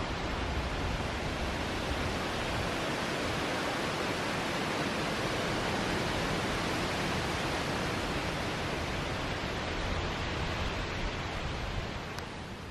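Wind blowing across the microphone and through the surrounding trees: a steady rushing noise with an uneven low rumble, easing off about twelve seconds in.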